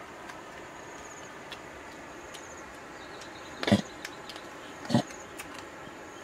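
Dogs feeding together from a woven basket, with two short loud sounds a little over a second apart. Insects chirp faintly and steadily behind them.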